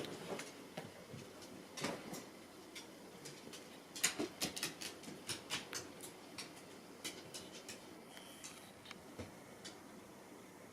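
Two cats play-fighting: scattered light taps and scuffles, with a quick run of clicks about four seconds in.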